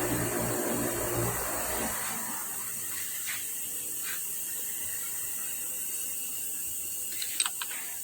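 A machine tool's motor running with a steady hum, dying away about two seconds in. After that a steady hiss remains, with a few light clicks, the sharpest near the end.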